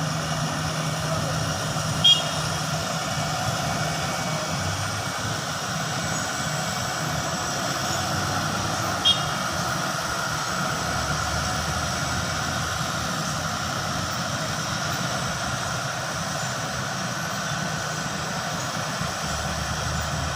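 Steady motor-vehicle engine and road noise, with two short sharp clicks about two and nine seconds in.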